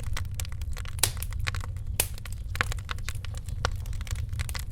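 Wood fire crackling: irregular sharp pops and snaps, the loudest about one and two seconds in, over a steady low rumble.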